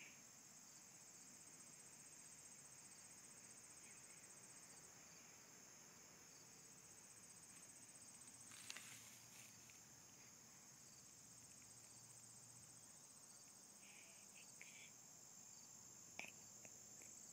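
A steady, high-pitched chorus of insects trilling continuously, with a couple of brief clicks, one about halfway and one near the end.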